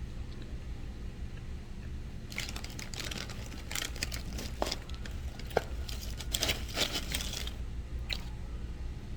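Crinkling and crunching as a fried chicken and fries meal and its paper packaging are handled and eaten close to the microphone. It comes as a dense run of crackly strokes from about two seconds in until past seven seconds, with a few more near the end, over a steady low hum.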